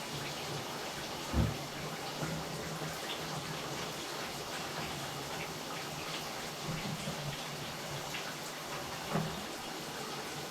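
Water running steadily from a bathtub faucet into the tub, with a dull thump about a second in and another near the end.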